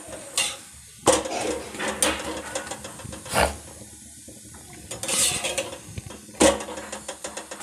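Cooking utensils clinking and knocking against a metal tawa griddle, with about five sharp knocks spread over several seconds and light scraping between them.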